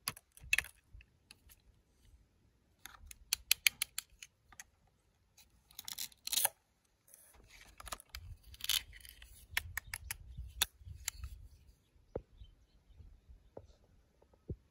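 Hard plastic toy food pieces and a plastic toy knife clicking and clattering as they are handled, in clusters of sharp clicks with rubbing and tapping in between.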